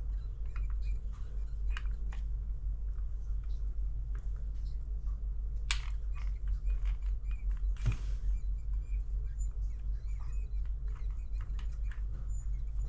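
Small clicks and taps of the plastic and metal parts of an opened cordless jigsaw's gearbox and motor being handled, with a sharper click about halfway through and a dull knock soon after, over a steady low hum.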